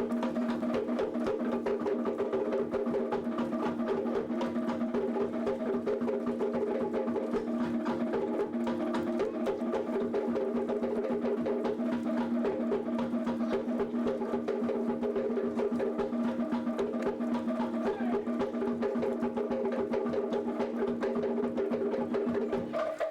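Background music with busy, rapid percussion over steady held low tones.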